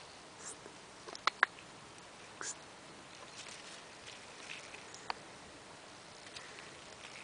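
Faint rustling of leaves and twigs as a cat pushes along a wooden rail into a leafy bush, with two sharp clicks close together about a second and a half in.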